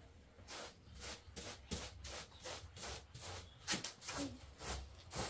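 Short straw hand broom sweeping a floor: a quick, even rhythm of brushing strokes, about two or three a second.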